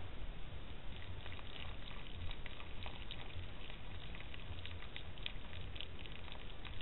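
Fallow deer buck foraging with its head down right at the microphone: irregular soft crackles and clicks, starting about a second in, over a steady low hum.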